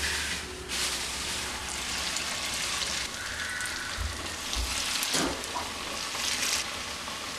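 Hot oil sizzling as hand-shaped portions of grated-potato pakoda batter are dropped in to deep-fry. The sizzle swells each time a new portion goes in.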